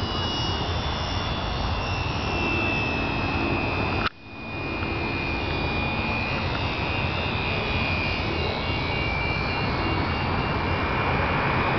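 Electric motor of a radio-controlled Super Cub model plane giving a thin, steady whine that sags slightly in pitch, under wind noise on the microphone. The whole sound cuts out abruptly about four seconds in and comes back within a second.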